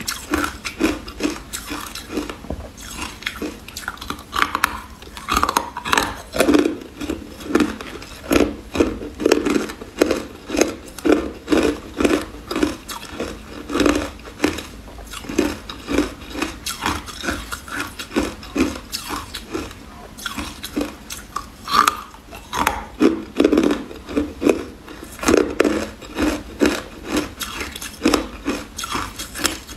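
A person chewing mouthfuls of frosty carbonated ice, steady crunching at about two crunches a second.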